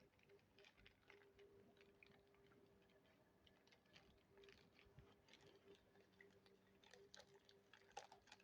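Faint crinkling and rustling of a plastic zip-top bag as a paper-wrapped box is slid into it, with a faint steady hum underneath.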